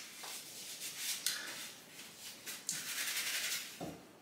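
Paper napkin rubbing and rustling as a mouth and sticky fingers are wiped: a run of soft, short scrapes.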